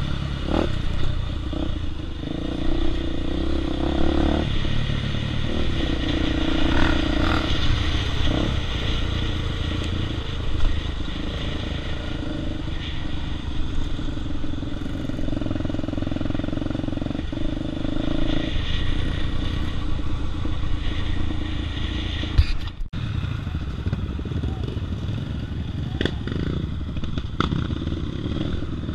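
Dirt bike's single-cylinder four-stroke engine running under way, its note rising and falling with the throttle, heard from a helmet-mounted camera with wind on the microphone.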